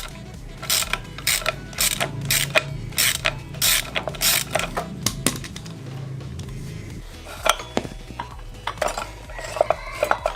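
Hand tools working on metal while a motorcycle rear wheel is dismantled: a quick run of sharp metallic clicks and clanks for about the first five seconds, then a few scattered clicks near the end.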